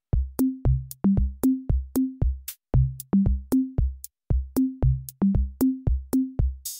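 Upbeat electronic background music: a drum-machine beat of about two or three hits a second, each with a short bass note that steps between a few pitches, and a brief hissing swell at the very end.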